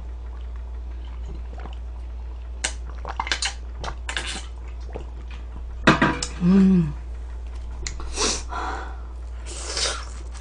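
Eating sounds at the microphone: wet mouth noises and chewing, with a few sharp clicks of tableware about three seconds in and a short hummed vocal sound a little past halfway. A steady low hum runs underneath.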